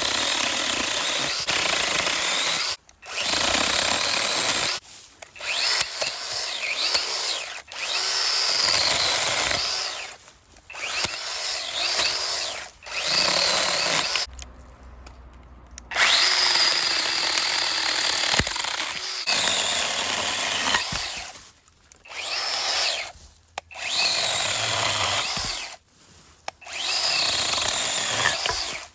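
NAOKEV 6-inch battery-powered mini chainsaw running in repeated bursts of a few seconds, with short pauses between, as it cuts through brush and small branches. The electric motor's whine rises as each burst starts.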